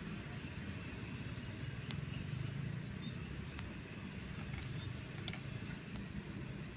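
Quiet outdoor ambience: a steady high-pitched insect drone over a low rumble, with a few faint ticks.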